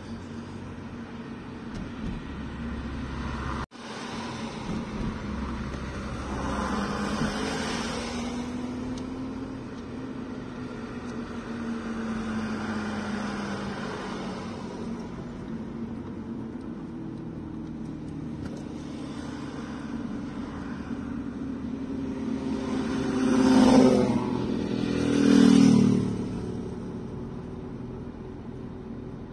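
Motor vehicle engines running, their pitch rising and falling slowly. Near the end two louder vehicles go past about two seconds apart, each falling in pitch.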